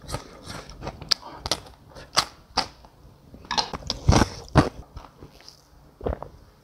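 Close-miked eating sounds: chewing and chopsticks clicking against the dishes. About four seconds in, cola is poured from a can into a paper cup, and near the end it is sipped.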